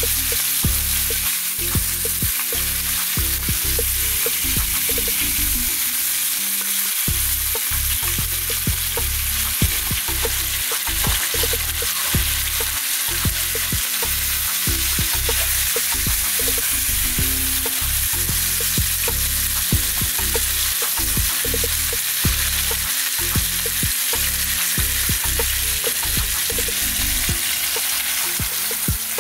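Whole fish frying in hot oil in a nonstick frying pan: a steady sizzle with many small crackling pops throughout.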